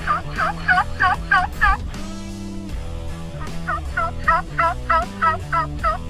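Turkey calling: two runs of about eight loud, evenly spaced calls, roughly three a second, with a pause of about two seconds between them, over background music.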